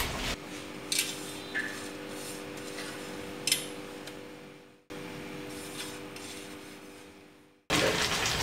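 A hand rubbing rice flour on a metal plate: a few light scrapes and clicks over a faint steady hum, twice dropping briefly to silence. A much louder rush of noise sets in near the end.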